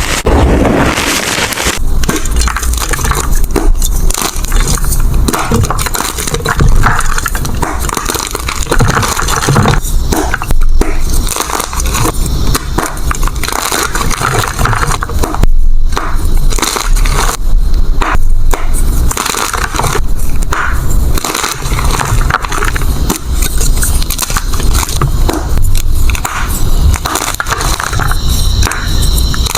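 Gym chalk being crushed, with dense, irregular crunching and crackling that keeps up without pause. The sound changes about two seconds in, as a new crushing take begins.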